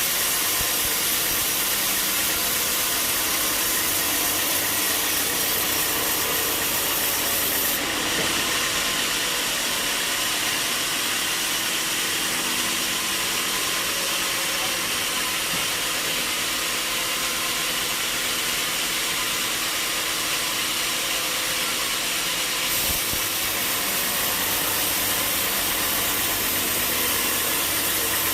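Sawmill machinery running steadily, a continuous mechanical drone with a strong hiss. The hiss changes abruptly about eight seconds in and back again near 23 seconds.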